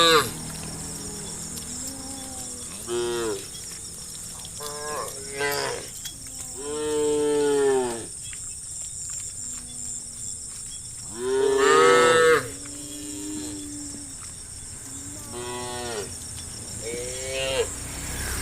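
Cows mooing: about six separate calls from the herd, short moos mixed with two longer drawn-out ones, the loudest a long moo about eleven seconds in.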